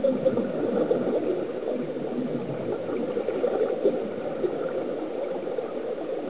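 Steady underwater bubbling and gurgling picked up by a submerged camera, air from the sea-walking helmets' air supply escaping into the water.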